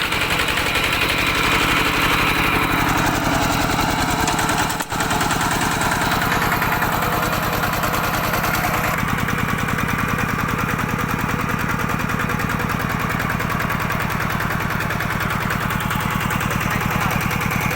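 A two-wheel walking tractor's engine running steadily, a fast, even chugging of firing strokes. There is a momentary break about five seconds in, and the note shifts slightly about nine seconds in.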